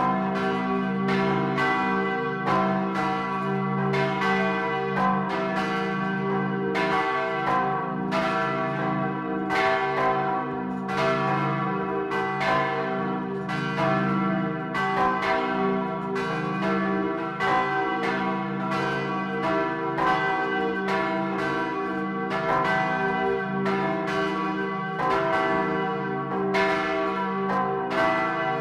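Swinging church bells ringing in full peal, heard close up inside the belfry: a 4300 kg bronze bell cast in 1525 and tuned to c′, with two smaller bells tuned to e′ and g′. The strokes overlap, about two a second, over a continuous ringing hum.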